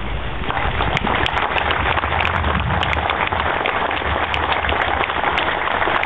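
Crowd applauding, a dense patter of many hands clapping that swells in the first second and holds.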